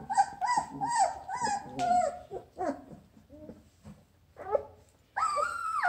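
Labradoodle puppies whimpering and whining. A quick run of short, arched squeaks comes first, about three a second, then scattered cries, a brief lull, and a longer whine near the end.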